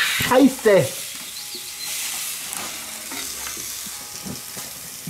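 Steady sizzling hiss of pizza toppings that slid off the peel cooking on the hot pizza stone of a Steak Burner XL, with a few faint scrapes.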